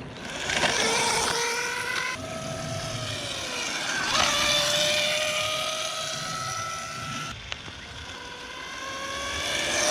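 Electric dirt bike motor whining as it is ridden, the pitch rising and falling with speed: it climbs about half a second in, dips around three seconds, jumps up again about four seconds in, drops near seven seconds and rises again toward the end.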